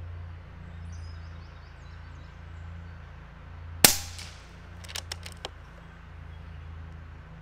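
A single shot from an Air Venturi Avenger .25 caliber regulated PCP air rifle, a sharp crack with a brief tail about four seconds in, followed about a second later by a few light clicks.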